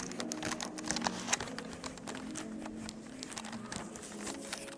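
Rustling and clicking of a hand-held camera and clothing being handled while walking, with faint music playing in the background.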